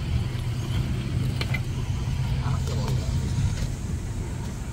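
Steady low drone inside a turboprop airliner's cabin, with faint passenger voices.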